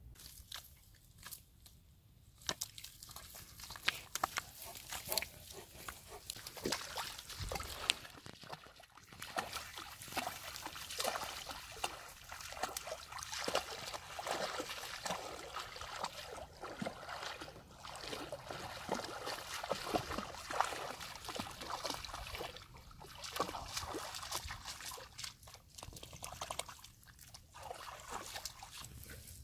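Several large Presa Canario dogs wading through shallow river water, their legs splashing and sloshing irregularly, starting a couple of seconds in.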